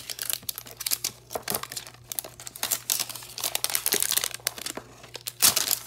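Packaging of a Score football card hanger box being torn open by hand: a dense run of crinkling and tearing crackles, loudest about halfway through and again near the end.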